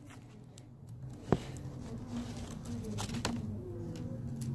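Quiet handling of paper and tape, with a few sharp clicks (the loudest about a second in) over a low, wavering hum.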